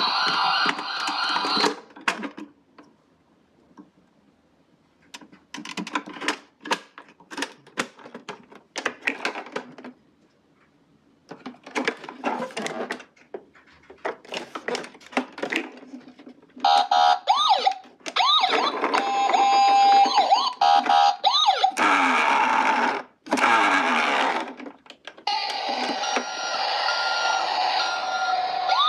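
Electronic sirens of toy ambulance minicars wailing in turns, with pitch sweeping up and down. Between them come long stretches of rapid clicking and rattling from the small toy cars.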